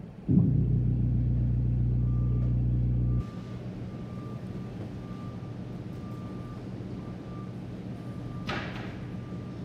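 GE washing machine's drain pump switching on with a loud, steady low hum, then cutting off abruptly about three seconds later.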